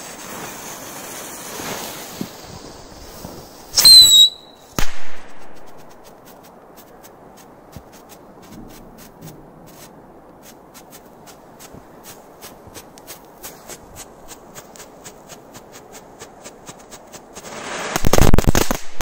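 Firecrackers going off: a fuse hisses, then about four seconds in a brief high whistle comes with a loud bang, followed by a second bang. A run of faint ticks follows, and near the end a loud spitting burst comes from a firecracker spraying sparks on the branch.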